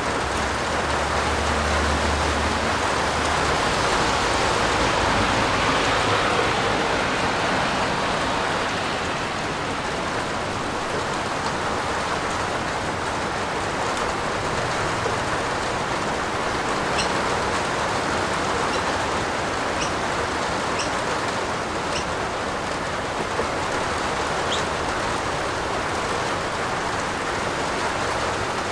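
Heavy rain falling steadily, a dense even hiss, with a few sharp ticks of single drops in the second half.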